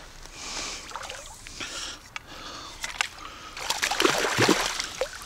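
A hooked trout thrashing and splashing at the water's surface as it is drawn in to a landing net, the splashing growing louder and busier in the last second and a half.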